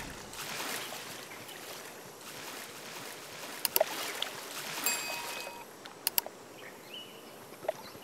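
Osprey bathing in shallow water: wings beating and splashing, with a few sharp drips and splats standing out about halfway through and near the end.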